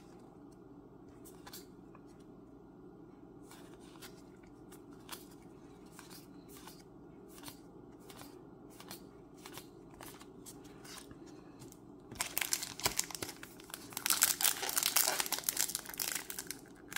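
Scattered faint clicks of trading cards being handled, then about twelve seconds in a Magic: The Gathering play booster pack's plastic wrapper crinkling loudly as it is torn open.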